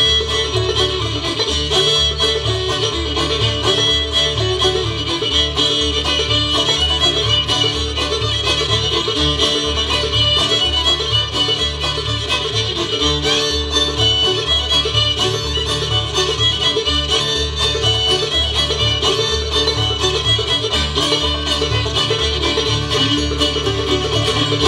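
Bluegrass band playing an instrumental tune, with fiddle and banjo out front over acoustic guitar and upright bass. The bass notes pulse steadily underneath.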